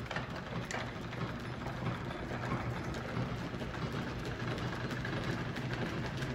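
A steady low mechanical hum over an even hiss, with a few faint ticks.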